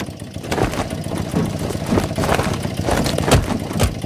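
A car engine idling steadily, with scattered knocks and bangs over it; the loudest come near the end.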